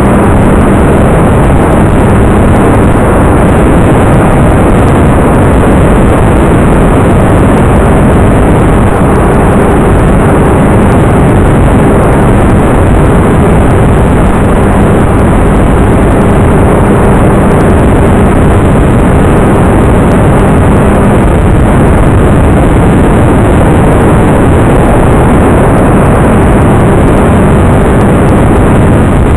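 Steady loud rushing noise with a faint low hum underneath, distorted and unchanging: wind and electric motor picked up on board a homemade FPV Talon fixed-wing plane in flight.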